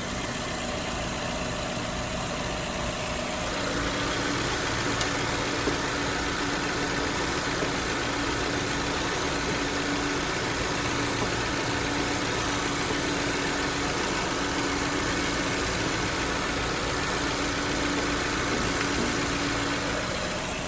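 2016 Honda Civic idling with the AC compressor clutch engaged, running while being recharged with refrigerant on the low side. About three and a half seconds in, a louder steady hum with a low tone joins, and it drops away just before the end.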